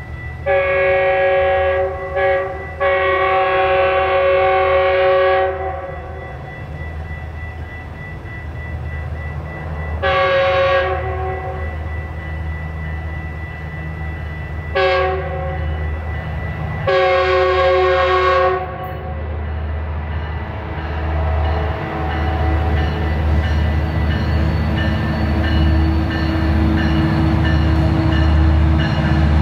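Train air horn sounding a series of blasts: a long blast broken by a short one, then shorter blasts several seconds apart and a final long one. After that the low rumble and wheel clatter of the train grow steadily louder as it approaches.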